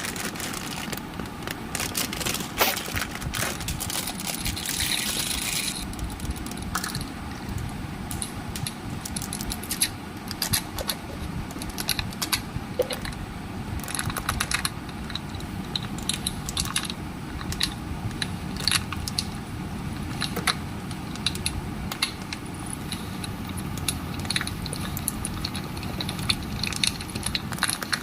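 Close handling of small plastic toys and packaging: an irregular run of clicks, crinkles and crunches, with a hissing rustle for a few seconds near the start.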